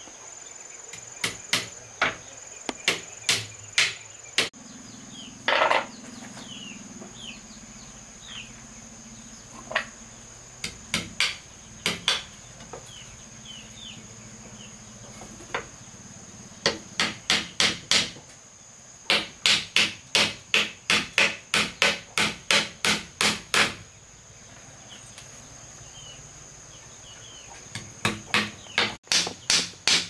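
Hammer striking nails into the wooden slats of a cupboard frame: scattered blows at first, then fast runs of about four strikes a second with short pauses between. A steady high insect buzz runs underneath.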